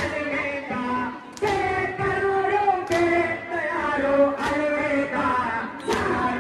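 Many voices chanting together in a Muharram chant. A sharp beat lands about every one and a half seconds, four times.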